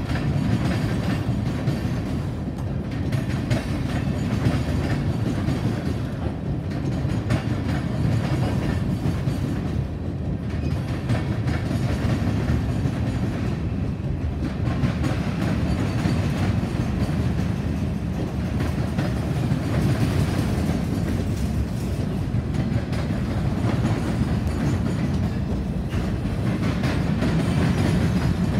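Freight train of open-top gondolas and covered hoppers rolling past close by: a steady rumble of steel wheels on rail, with frequent clacks as wheels pass over rail joints.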